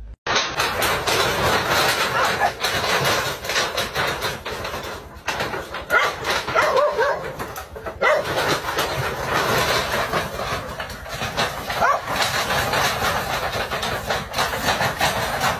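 Dogs and puppies yelping and barking a few times over loud, continuous scuffling and clatter, the kind made by paws on loose metal roofing sheets, while they confront a snake.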